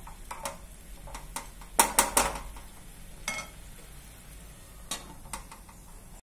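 A spoon stirring grated bottle gourd cooking in milk cream in a pan, with irregular scrapes and clicks against the pan, several close together about two seconds in.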